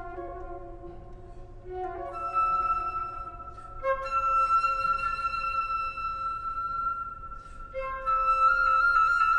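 Solo flute with live electronics playing long held notes that overlap and sustain into one another. New notes enter about two, four and eight seconds in, and it grows louder near the end.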